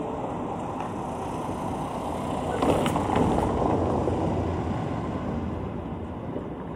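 Steady low background noise, swelling a little about three seconds in.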